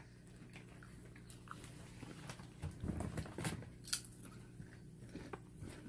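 A person chewing a crunchy chip close to the microphone, with a handful of crisp crunches bunched together a few seconds in.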